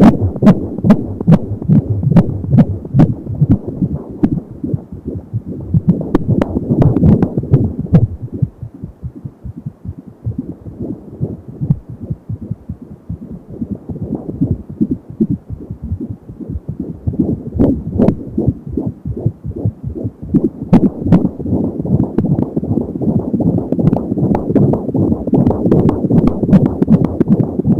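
Fetal heartbeat heard through an Angelsound handheld fetal Doppler: fast, even whooshing pulses, about 170 a minute. The pulses grow weaker for several seconds in the middle, and sharp clicks are scattered through.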